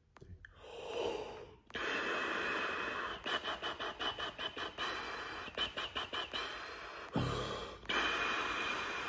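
A tuba player blowing a lip-flexibility study as breath alone, without buzzing a note: a breath in, then a steady hiss of air broken into quick tongued pulses. A second breath is taken about seven seconds in, then the tongued air goes on.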